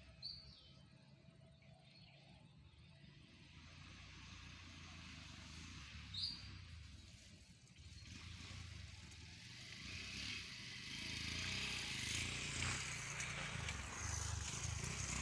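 A vehicle approaching, its low rumble and hiss growing steadily louder through the second half. Two short high chirps sound earlier, about six seconds apart.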